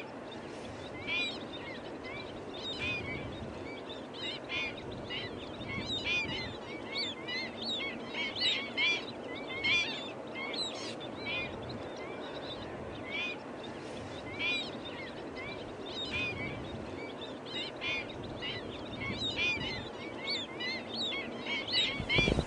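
A large flock of water birds calling constantly: many short, overlapping calls, several a second, over a steady background rush.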